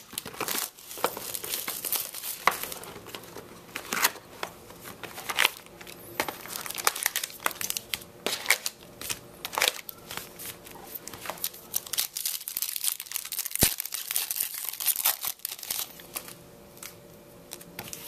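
Plastic wrapping crinkling and tearing in irregular bursts as the shrink wrap is pulled off a sealed trading-card box and a card pack is opened.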